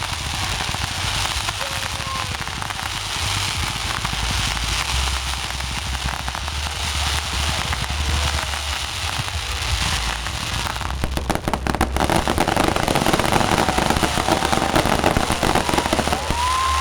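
Fireworks going off close by: continuous crackling and popping, which turns into a dense, rapid barrage of bangs and crackles about eleven seconds in.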